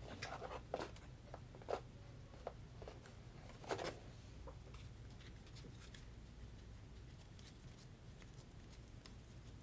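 Faint rustles and light taps of trading cards and plastic card holders being handled, a few in the first four seconds, over a steady low room hum.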